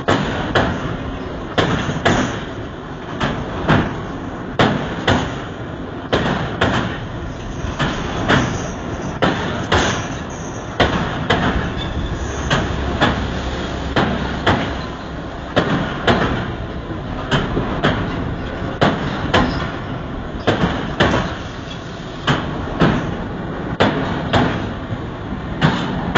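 Intercity passenger train coaches passing close by at speed. Their wheels clatter over the rail joints in a steady, repeating rhythm of sharp clicks over a constant rushing rumble.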